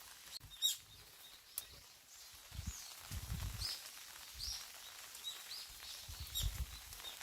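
Small songbirds chirping in short, high calls scattered every second or so, the sharpest burst about half a second in. Low thuds of footsteps on a forest path come in twice.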